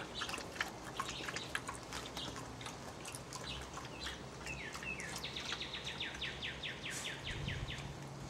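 A Jack Russell terrier lapping water from a bowl, quick irregular clicks for about the first two seconds. Then birds chirping, with one bird singing an even trill of about six falling notes a second in the second half.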